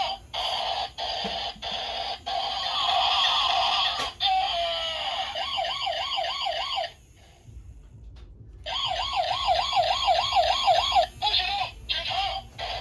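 Electronic siren sound effect from a battery-powered toy: chopped beeps, then a fast warbling wail of about five wobbles a second. It cuts out for a second or two about seven seconds in, then starts again.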